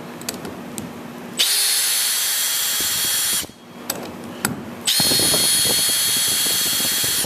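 Cordless drill-driver backing out #10 silicon bronze Frearson-head wood screws from a plywood boat bottom into the transom: two runs of steady whine of about two seconds each, with a few light clicks before and between them.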